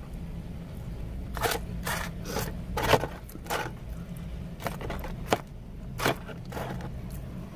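A fork scraping and clicking against food and its container while someone eats, in about a dozen short irregular scrapes and clicks over a low steady hum.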